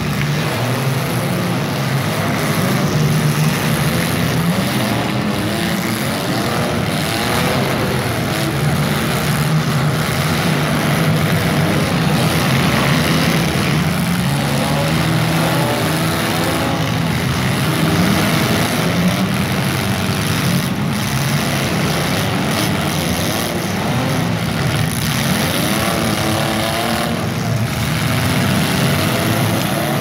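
Several compact demolition derby cars' engines revving hard together, their pitches rising and falling over a steady low drone.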